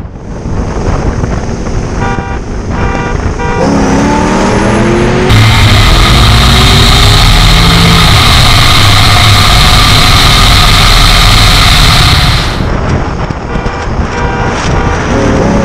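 Cammed 5th-gen Camaro SS V8 heard from inside the car as it pulls from a 40 mph roll: the revs climb sharply about four seconds in, then it runs loud at full throttle for about seven seconds before the throttle is lifted. The revs climb again near the end.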